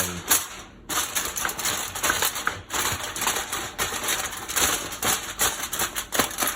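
Sheet of aluminium foil crinkling and crackling as it is pressed down over a foil pan, a dense run of small clicks that starts about a second in.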